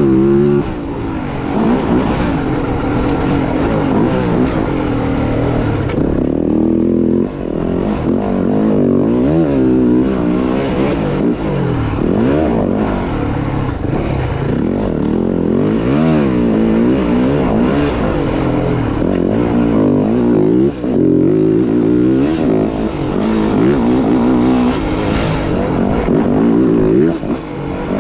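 Dirt bike engine revving up and down over and over, its pitch rising and falling every second or two as the throttle is worked.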